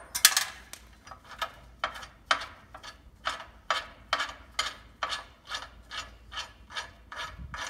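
Flat hand file stroked back and forth over the edge of a hole in a steel truck frame, about two filing strokes a second, knocking off the burrs left by a 2-inch hole saw.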